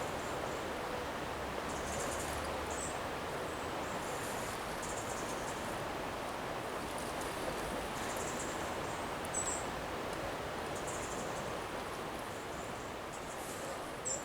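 Steady outdoor rushing noise with short, repeated bursts of high insect chirring, like crickets, and a few brief bird chirps.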